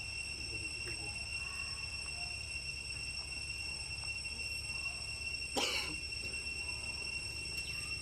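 Steady, high-pitched insect drone with a low rumble underneath. About five and a half seconds in comes one short, sharp rustle.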